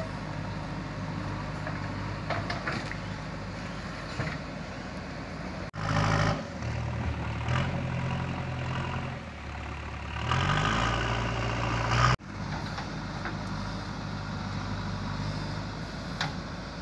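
Backhoe loader's diesel engine running. In the middle it grows louder and its pitch rises, revving under load, then it settles back to a steady run.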